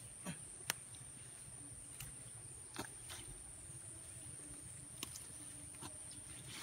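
Water spinach (kangkong) being picked by hand: a few faint, crisp snaps of stems breaking and leaves rustling, spaced a second or two apart, over a steady high-pitched insect drone.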